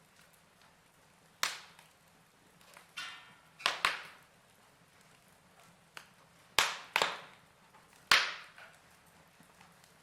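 Wood fire crackling: irregular sharp pops and snaps of burning wood over a quiet background, several of them in quick pairs.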